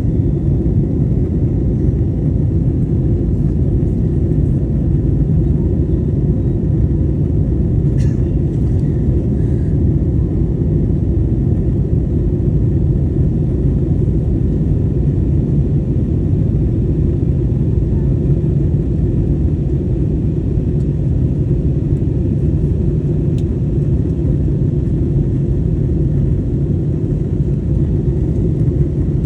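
Steady low rumble of cabin noise inside an Airbus A321LR neo airliner in flight: engine and airflow noise heard from an economy seat.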